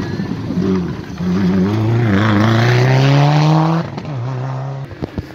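Rally car engine accelerating hard out of a hairpin, its note climbing steadily for a couple of seconds and loudest at the top, then dropping abruptly to a lower, steady note as the driver lifts or shifts. A few sharp cracks follow near the end.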